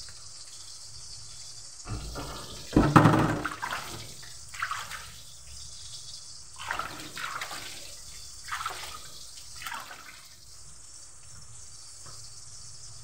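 Hot oil sizzling in a wok as a floured pork piece goes in: a loud burst of sizzling about three seconds in, then several shorter flare-ups over the next seven seconds, over a steady high hiss.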